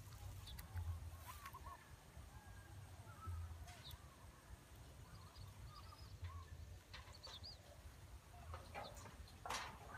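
Faint bird calls: short chirps scattered throughout, with a few brief clicks and a short rustling noise near the end.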